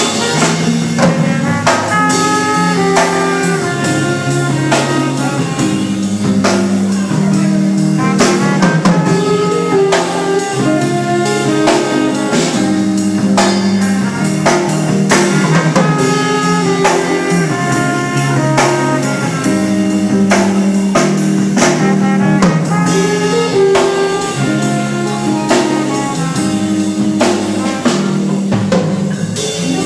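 A live band playing an instrumental passage in a jazzy style, with a drum kit keeping a steady beat under a horn-like melody and a bass line.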